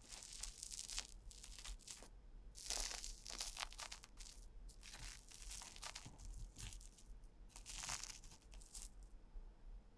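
Chopsticks pressing into and tearing through an airy soufflé omelette, a soft crackling and rustling as the foamed egg splits, coming in four bouts.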